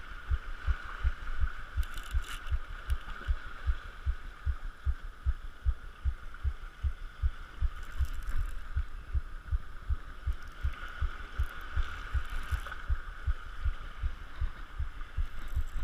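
Baitcasting reel being cranked to bring in a hooked fish: an even run of low thumps, about four a second, with a steady whir over it.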